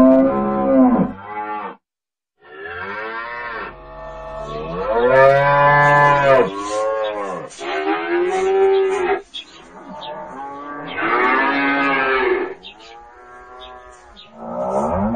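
Cattle mooing: several long, drawn-out moos whose pitch rises and falls, with a brief silence about two seconds in and another moo starting near the end.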